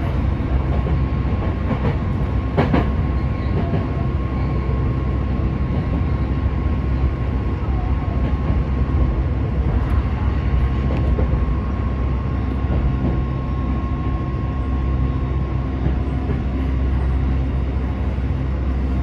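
Yokohama Municipal Subway Blue Line 3000A-series train running, heard from inside the cab: a steady rumble of wheels on rail with a steady high whine that stops a little before the end. There is a short sharp sound about three seconds in, and clicks of the wheels crossing rail joints and points around the middle.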